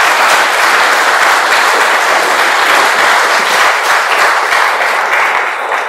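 Audience applauding, loud and steady, a dense patter of many hands clapping.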